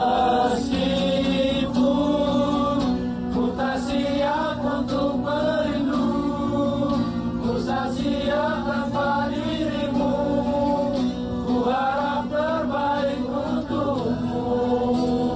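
A group of men singing a song together in unison, accompanied by a strummed acoustic guitar.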